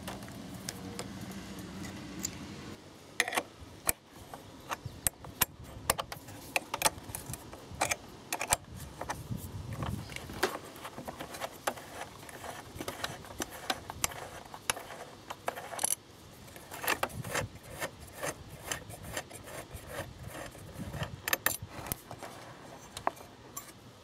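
Hand tools clicking and clinking irregularly against metal and plastic while the motorcycle's rear turn signal lamp mounting is being undone.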